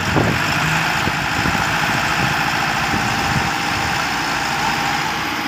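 Massey Ferguson 385 tractor's diesel engine running steadily under load as it pulls on a tow chain, its rear tyre churning in wet mud.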